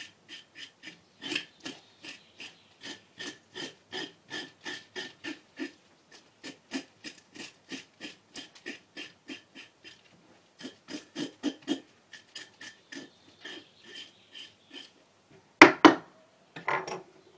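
Fish scaler scraping the scales off a whole whitefish on a cutting board, in quick even strokes about three a second with a couple of short pauses. Two louder clatters come near the end.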